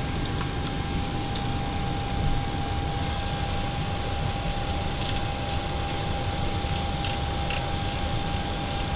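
Steady cockpit background noise of a parked Boeing 737-800: even ventilation and equipment hum with a steady mid-pitched tone, and a few faint clicks in the middle.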